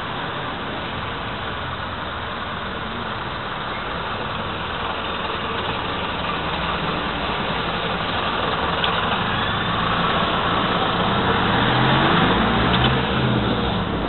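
Street traffic: a steady din of passing motor vehicles, with an engine growing louder through the second half and peaking near the end as a vehicle goes by.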